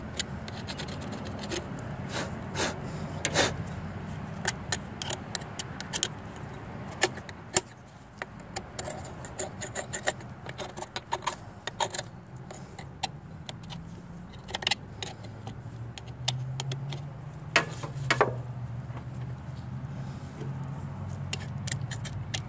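Irregular scraping, scratching and sharp clicks of a tool cleaning old gasket residue off an engine's thermostat housing mating surface, with a steady low hum underneath.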